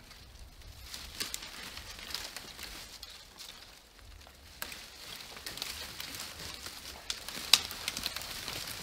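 Dry branches and twigs crackling and snapping as brush is pulled up and dragged by hand, with steps through dry forest debris; one sharp snap near the end is the loudest.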